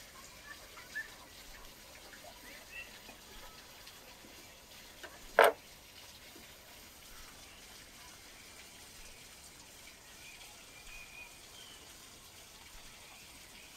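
A man eating a piece of roast chicken: one short, loud mouth smack or bite about five seconds in. Behind it runs a steady faint rushing background, with a few faint bird chirps.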